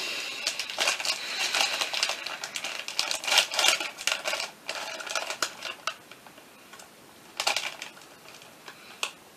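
Crinkly chip bag being pulled open, a dense crackling rustle that dies down after about six seconds, with one more short crinkle of the bag near the end.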